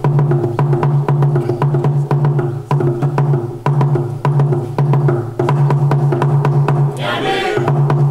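Music with a fast, even clicking percussion beat over a low bass line that pulses on and off in a repeating pattern, and a brief wavering high-pitched sound about seven seconds in.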